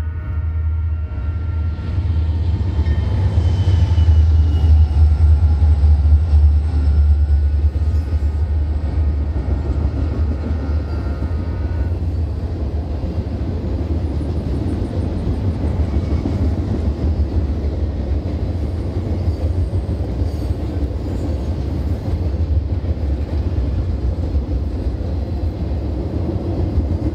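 Freight train of boxcars rolling past on the rails: a continuous low rumble that swells to its loudest about four to seven seconds in, then runs on steadily as the cars go by. Faint steady high ringing tones sound over it and stop about twelve seconds in.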